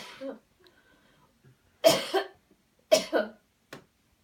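A person giving hard, deliberate coughs to clear the chest: one right at the start, two loud ones about two and three seconds in, and a short one near the end.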